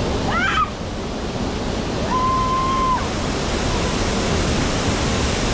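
Steady rush of fast-moving river water pouring below a dam. About half a second in there is a short rising call, and a little later a single held tone lasts just under a second.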